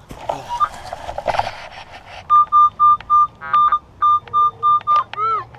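A pinpointer beeping rapidly, about four steady high beeps a second, as it sounds off on a target in the dug plug of soil. Before it come a couple of seconds of scraping and rustling in the dirt, and near the end a short rising-and-falling tone.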